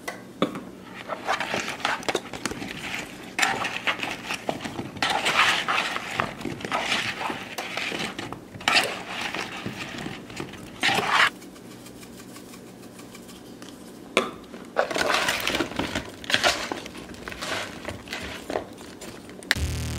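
A metal spoon tossing and stirring cut red potatoes, then sliced zucchini and yellow squash, in a mixing bowl: irregular scraping and clattering in bursts, with a lull of a few seconds in the middle.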